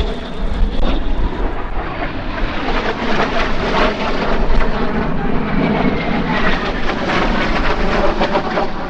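Aero L-39 Albatros jet trainers flying their display, a steady loud rush of turbofan jet noise, with a faint falling whine as a jet passes about the middle.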